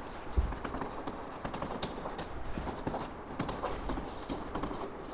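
Chalk writing on a blackboard: a run of short scratches and taps as a line of an equation is written, with one dull knock about half a second in.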